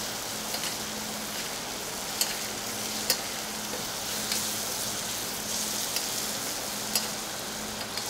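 A pork chop sizzling in foaming brown butter in a hot cast iron pan as it is butter-basted with a spoon. The hiss is steady, with a few sharp clicks spread through it.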